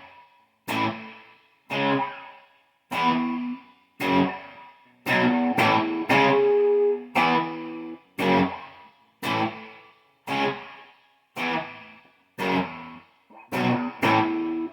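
Electric guitar played through an amplifier, single strummed chords about once a second, each left to ring and die away, with a few quicker chords held longer about five to seven seconds in.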